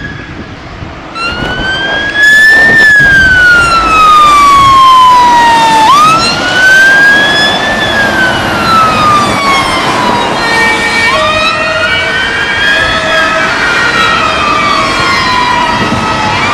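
Fire engine's electronic siren wailing: each cycle rises quickly, then falls slowly over about three seconds, repeating about every five seconds. From about eleven seconds in, short steady tones sound over the wail.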